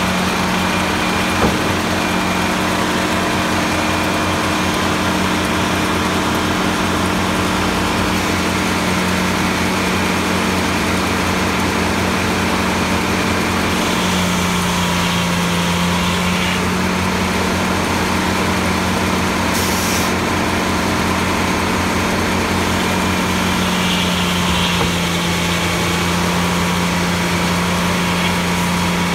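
Large sawmill running: a steady machine hum with constant low tones, which shifts in pitch about halfway through and again near the end. A single knock comes about a second and a half in.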